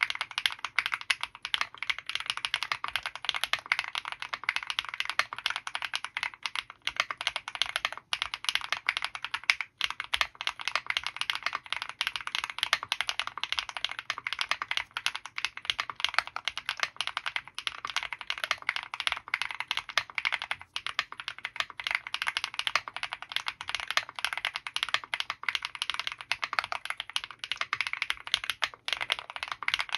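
Fast, continuous typing on an Owlab Mr.Suit mechanical keyboard fitted with KTT FBB F1 switches lubed with Krytox 205g0, EPT plate foam and GMK Serenity keycaps: a dense, unbroken stream of keystrokes with only a few brief pauses.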